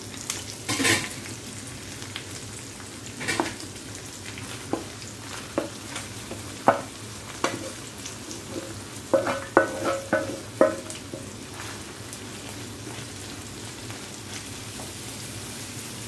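Boiled red amaranth leaves poured into a hot frying pan of prawns in butter, sizzling steadily, with scattered sharp knocks and clinks of cookware against the pan, bunched most thickly around the middle.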